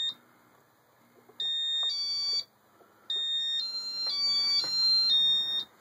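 Electronic beeps from a Casablanca ceiling fan's Inteli-Touch (IT) control board as it takes speed commands: a pair of beeps of two pitches, then a run of beeps stepping up and down in pitch. A faint low hum runs beneath them. The beeps show the repaired board is receiving and acting on commands.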